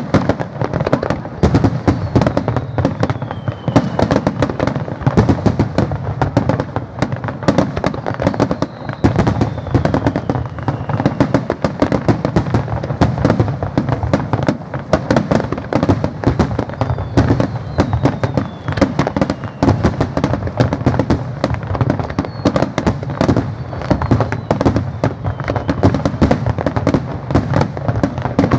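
Aerial fireworks in a rapid, continuous barrage of bursting shells and crackle, many reports a second. Faint falling whistles sound now and then.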